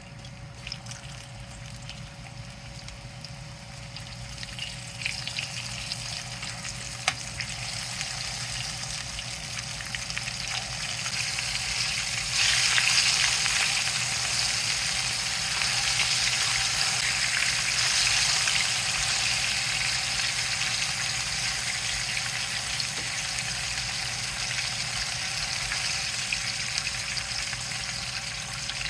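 Sliced, floured meat frying in a pan, a steady sizzle that builds over the first dozen seconds and jumps up sharply about twelve seconds in, then slowly eases, with a few small clicks.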